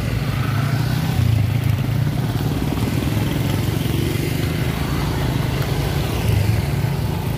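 Small motorcycles and scooters riding past one after another at low speed, their engines making a steady low drone.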